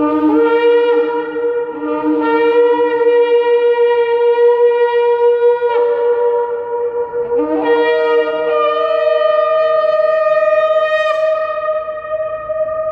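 Two ram's-horn shofars blown together in long, held blasts, each at its own pitch, with several breaks and jumps in pitch along the way. The notes stop about eleven seconds in and ring on in the marble rotunda under the dome.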